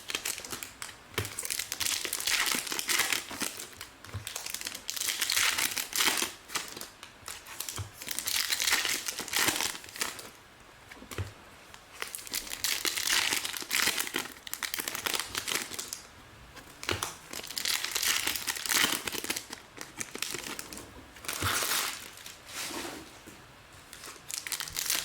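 Trading cards and their plastic packaging being handled: crinkling and rustling in repeated bursts every second or two, with soft light knocks every few seconds.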